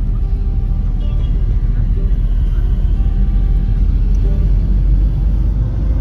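Steady low rumble of a car driving, heard from inside the car, with quieter background music over it.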